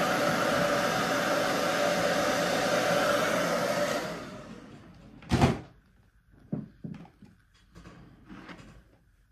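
Handheld hair dryer blowing steadily, switched off about four seconds in and winding down. About a second later comes one sharp knock, then a few faint taps and rustles.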